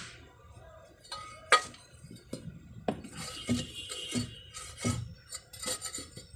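Loose metal pieces handled by hand, clinking and knocking against each other in an irregular string of sharp clinks, some ringing briefly, the loudest about a second and a half in.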